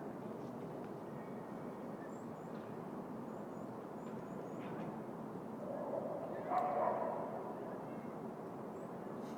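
City park ambience: a steady hum of distant city traffic, a few faint high bird chirps, and one brief louder call with a clear pitch about six and a half seconds in.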